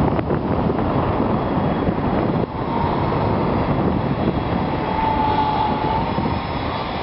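Strong wind buffeting the microphone, a loud rumbling rush. Through it, about five seconds in, comes the faint steady whine of a mini quadcopter's motors as it flies close.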